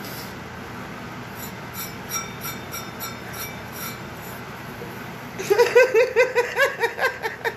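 A woman laughing in a run of short, quick bursts that starts about two thirds of the way in and is the loudest sound, over a steady hum. Before it, faint light clinks of a stainless steel bowl being handled.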